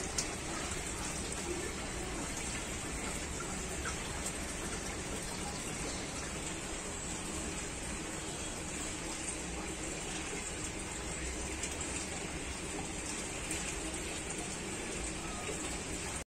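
Steady rushing and bubbling of water from aquarium aeration, a constant even hiss.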